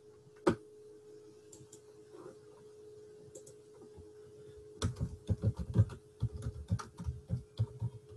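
Typing on a computer keyboard: a single key click about half a second in, then a quick run of key presses from about five seconds in.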